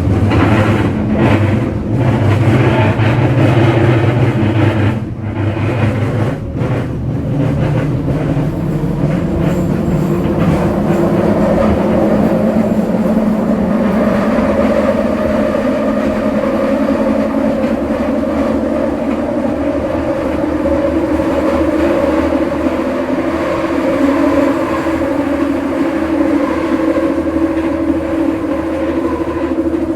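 Scarborough RT light-metro train running, heard from inside the car: a steady rumble of wheels on rail with the hum of its linear induction motors. Several steady tones run through it, and one climbs slowly in pitch over several seconds early on.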